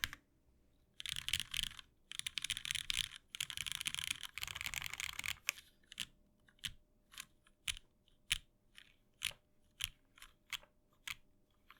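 Typing on a Dalco 959 Mini mechanical keyboard with an aluminium plate and lubed Cherry MX Hyperglide Black linear switches: fast runs of keystrokes for the first few seconds, then single keys pressed one at a time, about two a second.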